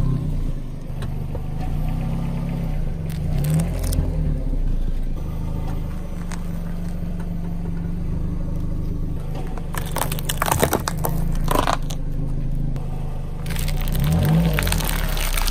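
A car engine running with a steady low drone, its pitch rising and falling briefly a few times. Over it come several short bursts of crackling and crunching as the car's tyre rolls over small hard candies and plastic strips of candy beads and crushes them, the longest burst near the end.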